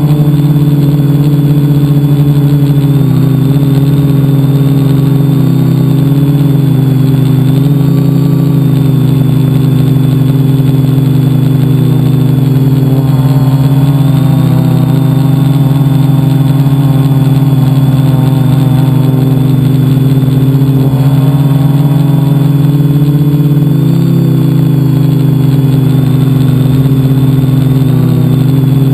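Multicopter's electric motors and propellers, heard from a camera mounted on the aircraft: a loud, steady whine of several pitches that shift up and down a little several times as the throttle changes.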